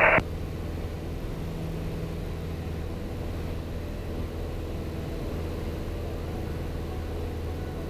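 Piper PA-28 Archer's four-cylinder Lycoming engine and propeller running steadily at climb power just after takeoff, a constant low drone.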